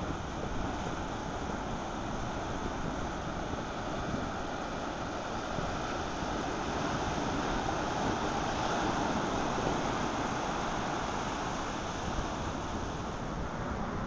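Ocean surf washing on the shore in a steady rush, a wave swelling louder around the middle and then easing off.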